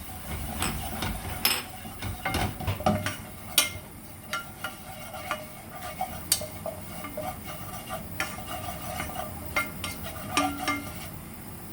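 Spatula scraping and tapping against a frying pan as turmeric and chili powder are stirred into hot oil, which sizzles faintly. The clicks come irregularly, several to the second at times, and one louder knock lands at the end.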